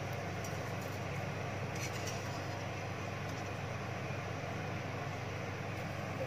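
Cumin seeds heating in ghee in a steel kadhai over a gas burner: a steady low sizzle and hum, with a few faint ticks, before the seeds start to splutter.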